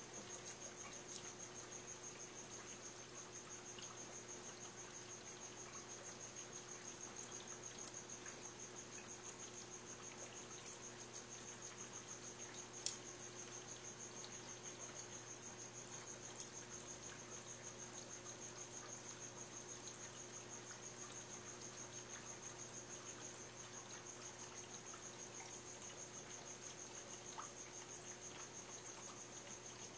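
A faint, steady, high-pitched trill that pulses rapidly, over a low steady hum, with a sharp click about 13 seconds in.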